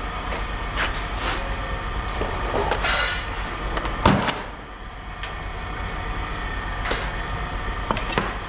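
Scrap metal being handled, giving scattered clanks and knocks with one loud bang about four seconds in, over a steady low hum.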